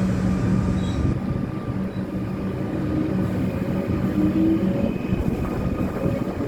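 Electric suburban metro train pulling out of the station, a steady motor hum over rumbling wheels on the rails.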